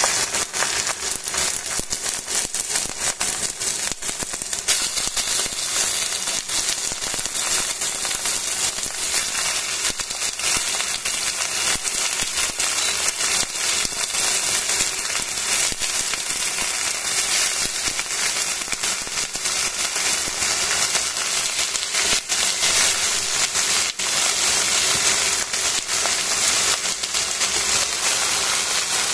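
Raw chicken breast slices sizzling and crackling in hot oil in a stainless steel pan, starting suddenly as the first slice touches the pan and carrying on as a dense, steady crackle.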